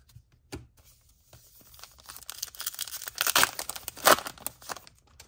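A baseball card pack wrapper being torn open and crinkled. The crackling rips build from about a second and a half in and are loudest near the end.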